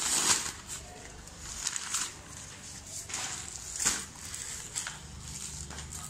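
Thin plastic bag crinkling and rustling as it is handled, in several short crackly bursts, the loudest at the very start and another about four seconds in.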